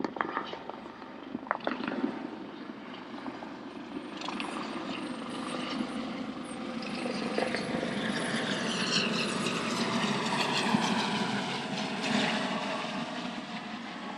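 US Coast Guard MH-65D Dolphin helicopter making a low flyover. Its rotor and turbine noise grows louder as it comes near and is loudest a couple of seconds before the end, with a whine that bends in pitch as it passes.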